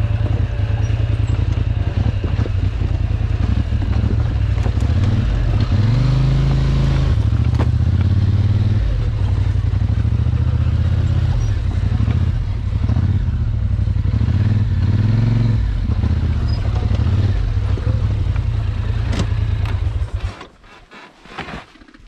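Polaris ATV engine running while being ridden off-road, its revs rising and falling, with a few knocks. The engine cuts off about twenty seconds in as it is switched off.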